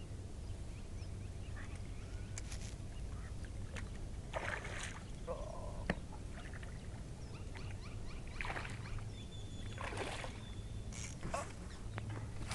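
A few short, faint splashes as a hooked largemouth bass thrashes at the water's surface while being reeled in, over a low steady rumble.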